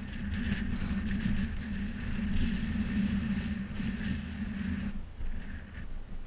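Wind rushing over an outdoor microphone, with a steady low hum underneath and a slight lull about five seconds in.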